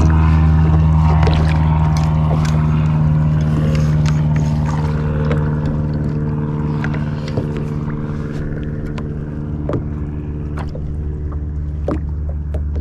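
A boat motor running steadily, a low hum that slowly fades, with scattered light knocks and clicks over it.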